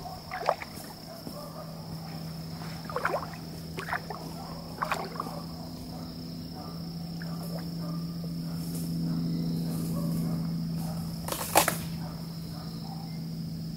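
Water splashing a few times as a person wades into a dam, with one louder splash near the end. Behind it are a steady high insect buzz and a low hum that swells and fades in the middle.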